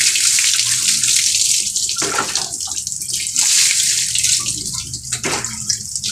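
Water poured from a plastic dipper over a dog being bathed, splashing onto a concrete floor. It comes in several pours, with fresh surges near the start, about two seconds in and about five seconds in.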